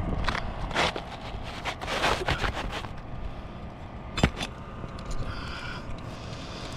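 Scraping and rustling against asphalt roof shingles, with one sharp knock about four seconds in, over a low rumble.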